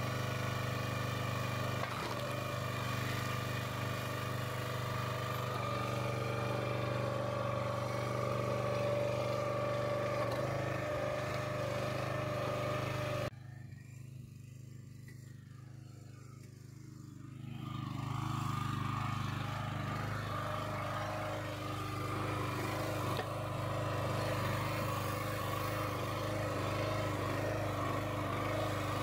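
Kohler Command Pro 9.5 hp single-cylinder engine of a Countyline 30-ton log splitter running steadily, freshly running well after its carburettor was cleaned of dirt. About a third of the way in the sound drops suddenly, then builds back up over a few seconds.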